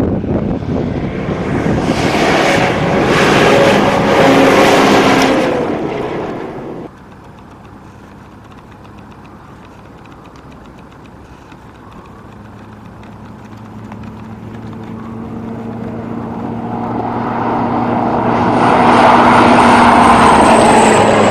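Loud wind rushing on the microphone, cut off suddenly about seven seconds in. Then a 4x4 pickup driving fast across a desert gravel plain, its engine drone and tyre noise building steadily as it approaches, loudest near the end as it passes close by.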